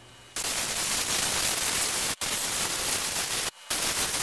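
Compressed air hissing from a blow-gun nozzle as it blows dust out of a shop vacuum's motor housing, starting a moment in, with two short breaks.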